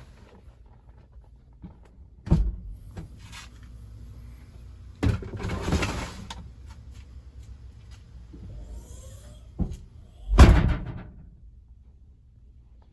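A few separate heavy thuds and clunks, the loudest near the end, over a low steady hum.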